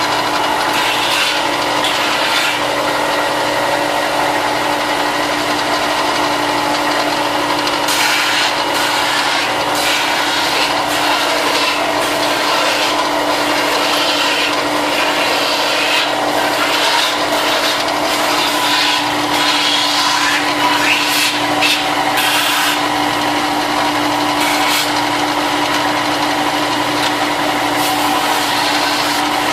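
Electric sander running steadily and grinding the edge of a plastic armor piece, its motor hum constant under a gritty, scratching noise that changes as the part is pressed and moved against it.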